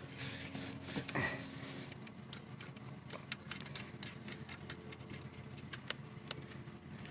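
Faint, irregular light clicks and ticks of a plastic dust cap being fitted and screwed back onto the A/C low-side charging port.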